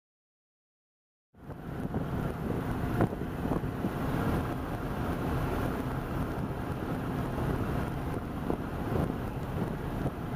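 Silence for about a second and a half, then steady wind noise buffeting the microphone.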